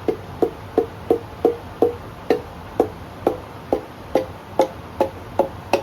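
A piston being tapped down through a ring compressor into its cylinder bore in a Chevy engine block: a steady series of about fifteen short, ringing knocks, about three a second, spacing out a little toward the end.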